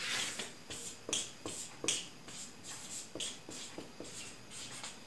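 A marker writing on a whiteboard: a string of short strokes and taps, about three a second, as the letters are drawn.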